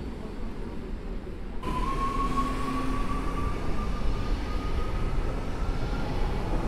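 Warsaw SKM electric multiple unit moving out along the near platform track, its traction motors whining in one slowly rising tone as it gathers speed, over the low rumble of its wheels. The whine begins about two seconds in, after a stretch of low train rumble.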